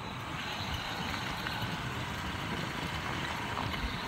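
Steady engine and road noise of a motorised two-wheeler under way, with wind rushing over the microphone.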